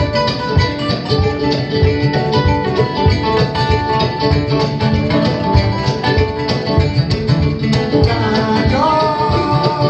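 Acoustic band playing a bluegrass and West African fusion piece: fast plucked guitar and kamale ngoni notes in a steady dense pulse, with held notes that slide up in pitch near the end.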